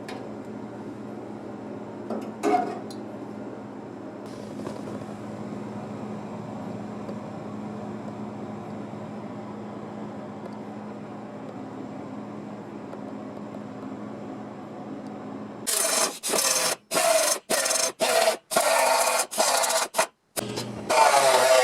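A steady low hum, then, near the end, a run of loud back-and-forth rasping strokes of a hand tool working sheet metal, about two strokes a second with short breaks between them.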